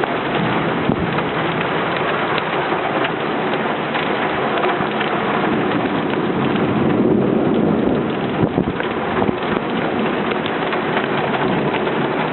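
Heavy rain falling steadily, with many sharp drop hits close by. A low rumble of thunder swells up about the middle and fades again.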